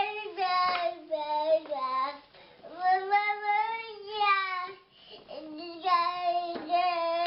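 A two-year-old child crying in a run of long, wavering wails, the longest lasting about two seconds, with short breaks for breath between them.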